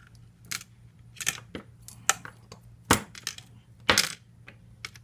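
Small metal fishing lures and tackle clinking and clicking as they are handled in a plastic tackle box: a string of separate sharp taps, the loudest about three and four seconds in.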